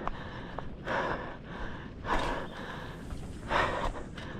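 A man breathing hard, out of breath from running: heavy breaths roughly every second and a half.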